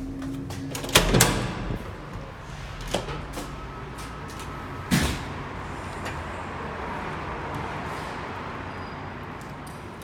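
Metal fire-exit door with a push bar: the bar clunks loudly about a second in as it is pressed and the door opens, a smaller click comes near three seconds, and another bang about five seconds in as the door shuts. Steady outdoor city background noise follows.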